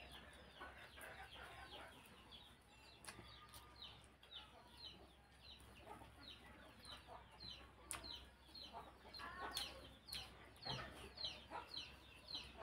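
Chickens peeping and clucking in the background: short falling chirps repeating a few times a second, faint throughout. A few faint clicks from hand-eating at the table.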